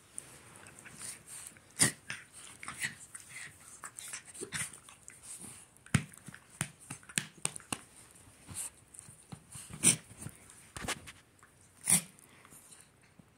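Two small dogs play-fighting: a rapid, irregular run of growls, snarls and snapping, broken by four sharp, louder outbursts.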